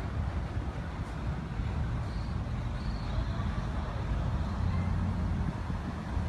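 Street ambience: a steady low rumble of passing road traffic.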